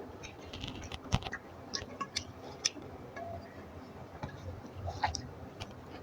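A person chewing a mouthful of rice and fish curry, with irregular sharp mouth clicks.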